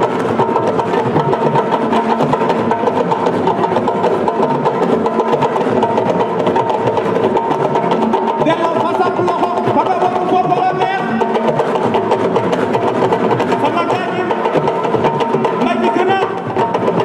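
A Senegalese drum ensemble playing live: fast, dense hand drumming in a steady driving rhythm. Voices sing over the drums in the second half.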